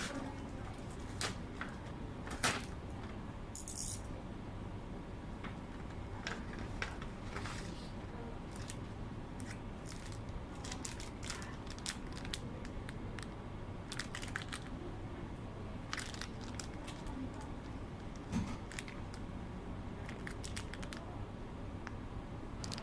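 Hands handling and unwrapping packaging: scattered soft crinkles, clicks and short tearing or crackling sounds over a low steady hum.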